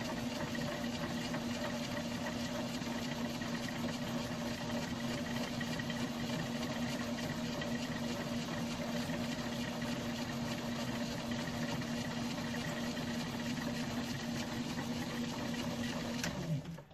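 Metal lathe running steadily under power with an even motor and gear hum, switched off and running down near the end.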